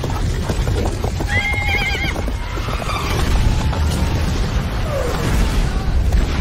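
A horse whinnies once, a quavering call about a second and a half in, over a steady deep rumble. There are scattered knocks of hooves early on.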